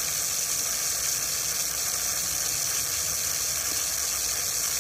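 Steady hiss of water running from a garden hose, even and unbroken.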